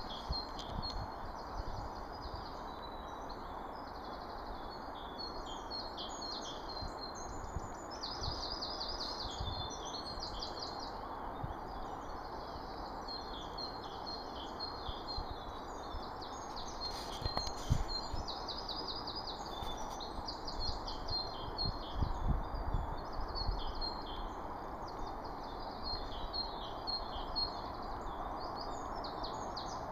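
Small songbirds chirping and singing in quick repeated trills throughout, over a steady outdoor background hiss, with a few low thumps in the second half.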